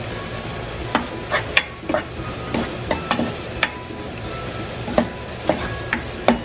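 A spatula stirring and tossing garlic scapes and fish cake in a frying pan, with irregular scrapes and knocks against the pan over a low, steady sizzle. This is the final mixing-in of sesame seeds.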